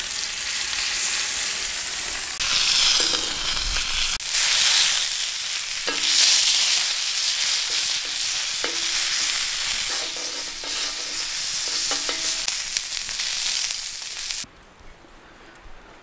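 Venison steaks sizzling loudly as they sear on a hot griddle plate over a wood fire. The sizzling stops suddenly about a second and a half before the end.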